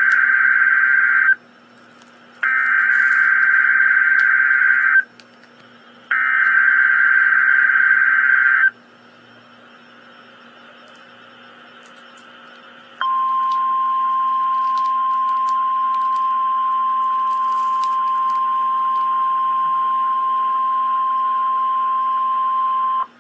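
Emergency Alert System SAME header over NOAA Weather Radio: three bursts of screeching digital data, about a second apart, sounded before the alert message. After a few seconds of radio hiss, the steady single-pitch weather radio warning alarm tone sounds for about ten seconds and cuts off suddenly.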